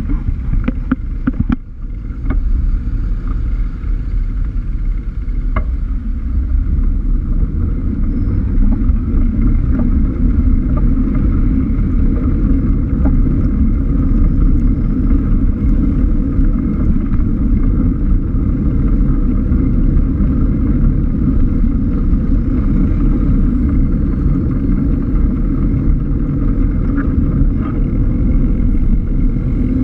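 Wind rumbling on a cycling GoPro's microphone with the noise of the surrounding road traffic, as the bike rides along a London street among cars, vans and lorries. A few sharp ticks come in the first few seconds.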